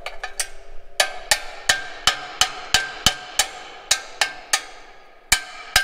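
Hammer blows on the steel shank mounting of a John Deere field cultivator: a quick run of ringing metal strikes, about three a second, a brief pause, then more blows near the end.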